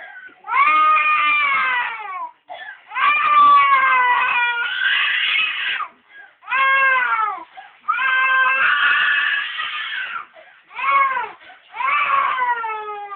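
Little girl crying and screaming loudly: a string of about six long wails, each falling in pitch at its end, with short catches of breath between them.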